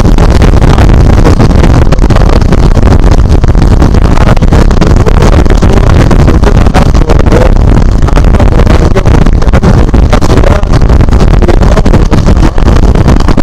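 KTM Duke 390 motorcycle riding at speed, heard as loud, steady wind rush on an action camera's external microphone with the engine running underneath.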